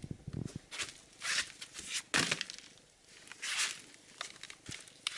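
Handling noise: several short rustling and scuffing bursts, with a few dull thuds near the start.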